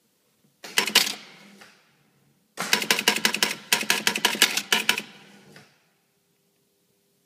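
Gottlieb Gypsy Queen electromechanical pinball machine's backbox mechanisms clattering: two bursts of rapid clicking from relays and stepper units, a short one about a second in and a longer one of about three seconds. A faint steady hum follows.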